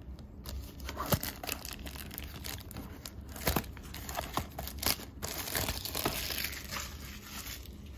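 Plastic packaging of a trading card box being crinkled and torn open by hand: irregular crackling with a few sharper snaps about three and a half and five seconds in.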